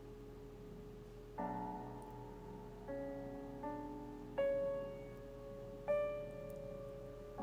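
Slow background music: five soft notes or chords struck one at a time, about a second or more apart, each left to ring out and fade.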